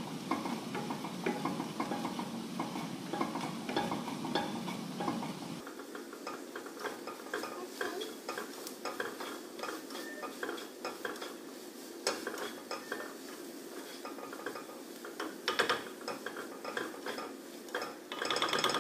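Black plastic slotted spatula stirring and scraping frying vegetables around a non-stick frying pan, many short scraping and tapping strokes over a soft sizzle. A low background hum stops about six seconds in.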